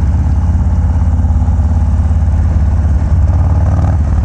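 A Harley-Davidson FXDR's 117-cubic-inch Milwaukee-Eight V-twin running steadily at highway cruising speed through a Bassani Road Rage exhaust.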